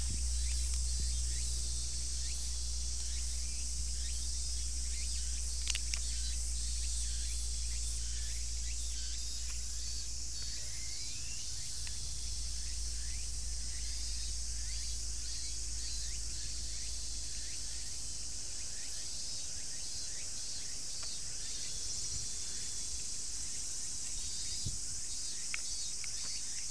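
A steady chorus of cicadas, a continuous high buzz that holds without pause, over a low steady rumble.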